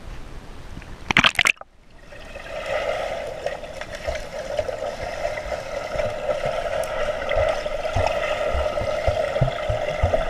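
A pool splash and gurgle about a second in as the camera goes under. After that comes the muffled underwater sound of a swimming pool: a steady hum with water noise and scattered low thuds from swimmers moving nearby.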